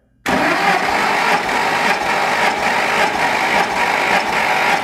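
Starter motor cranking the 6.0-litre V12 of a 2005 Aston Martin DB9 with its spark plugs out and fuel pumps disabled, so the engine spins over without firing. It starts suddenly and runs steadily for about four and a half seconds, the cranking of a compression test.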